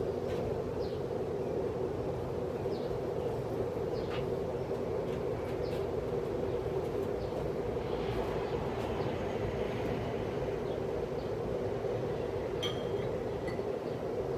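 1979 Envirofan 52-inch ceiling fan running: a steady motor hum with the rush of air from the blades and a few faint clicks.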